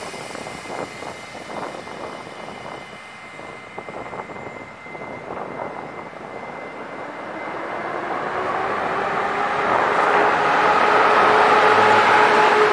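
EU07 electric locomotive hauling a passenger train, approaching and passing close by. Its droning whine and rolling noise grow steadily louder, peak near the end, then dip slightly in pitch as it goes by.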